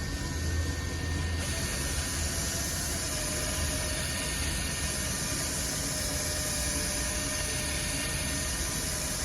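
Milwaukee M12 cordless buffer running steadily against a headlight lens, a held motor whine over the hiss of the pad, dipping slightly in pitch about three seconds in.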